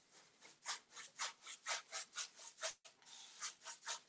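Paintbrush scrubbing paint back and forth across a rough wooden tabletop, with quick, regular scratchy strokes at about three a second and a brief pause about three seconds in.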